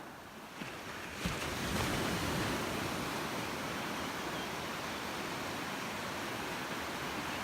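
Ocean surf rushing, swelling louder about a second or two in and then holding steady, with a short knock as it rises.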